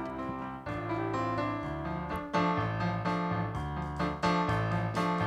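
Keyboard/piano playing the instrumental introduction to a worship song, with sustained chords over a bass line and repeated note attacks.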